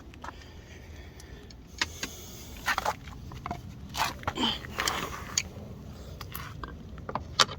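Scattered small metal clicks and clinks of hand tools and sockets being handled and tried on the door-panel screws to find the right size, over a low steady hum.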